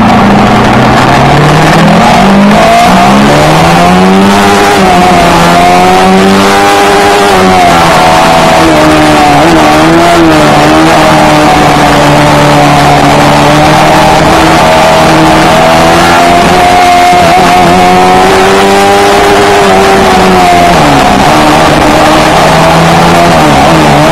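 Very loud exhaust note of a Yamaha R3's parallel-twin engine through an Akrapovic GP exhaust while riding. The revs climb and drop several times with the throttle, holding steady for stretches in between.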